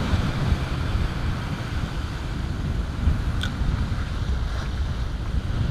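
Wind buffeting the microphone over waves washing and splashing against the rocks of a jetty.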